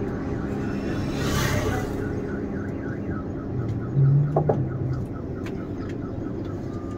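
An electronic alarm chirping rapidly, about four to five chirps a second for a few seconds, over a low background hum.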